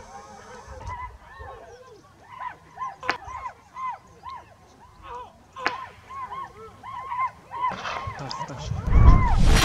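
A pack of hunting dogs baying over and over at a wild boar, with two sharp gunshots about three and five and a half seconds in. Near the end a loud rushing noise covers the calls.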